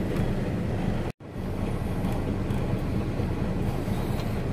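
Semi truck's engine idling, a steady low rumble heard inside the cab. It drops out for an instant about a second in.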